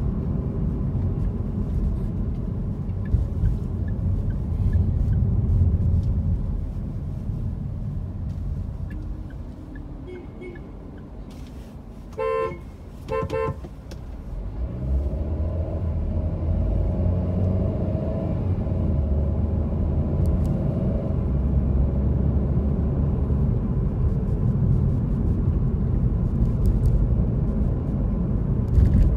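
Car engine and road noise heard from inside the cabin while driving in city traffic, dropping quieter for several seconds, then a low engine rumble coming back stronger about fifteen seconds in. Two short vehicle-horn toots sound a second apart around the middle.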